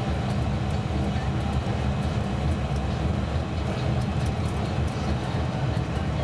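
Inside a Karosa C954E intercity bus cruising along a country road: the diesel engine drones steadily under tyre and road rumble, with faint ticks and rattles from the cabin.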